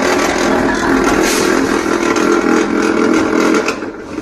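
D13 electric wire stripping machine running loud while stripping the insulation off a three-core aluminium cable; the noise drops away near the end.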